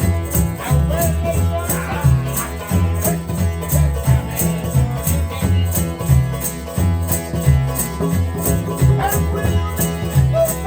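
Vanuatu string band playing: plucked or strummed string instruments over a deep bass line, with a shaker keeping a quick steady beat of about three strokes a second and voices singing in places.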